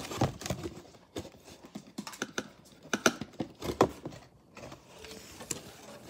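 Irregular clicks, taps and light rustling from a fold-out cardboard toy playset being handled and moved about.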